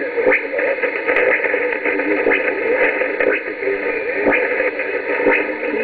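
Shortwave radio receiver tuned to 4865 kHz, playing a weak distant broadcast from Radio Logos buried in steady hiss and static. A short click comes through about once a second.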